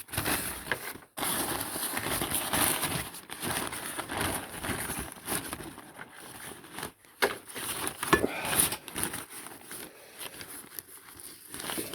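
A sheet of protective paper rustling and crinkling as it is handled and spread out over a work surface, with irregular crackles.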